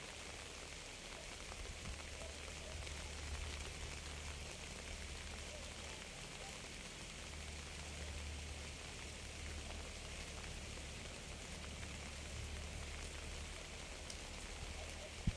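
Steady rain falling, an even hiss of many drops, with a low steady rumble underneath.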